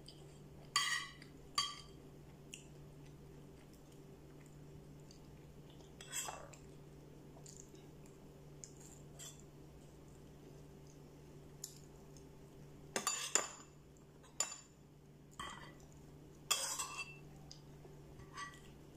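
Metal spoon clinking and scraping against a ceramic bowl and plate while eating: short ringing clinks scattered through, with a quick cluster about thirteen seconds in and another near seventeen, over a steady low hum.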